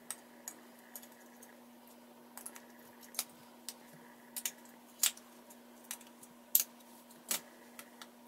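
AA batteries being pressed one at a time into a plastic four-AA battery holder, giving irregular sharp clicks and light plastic taps.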